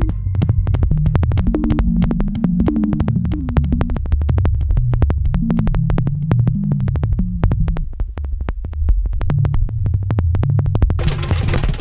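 Background electronic music: a synthesizer bass line moving under a quick, even clicking beat, with fuller drums joining near the end.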